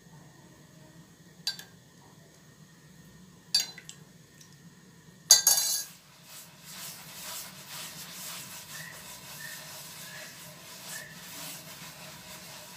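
A few sharp clinks, the loudest about five seconds in. About a second later comes a steady gritty scraping as hands rub and roll moistened flour against a terracotta dish, forming it into small couscous-like grains for fteel.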